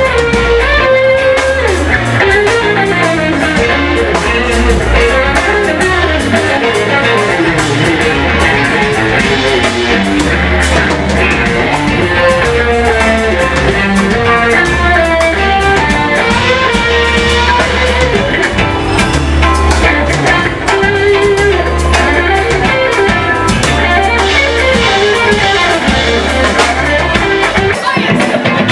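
Live funk band playing an instrumental passage: two electric guitars, one a Fender Stratocaster, over a pulsing electric bass line and drum kit. The low bass notes drop out just before the end.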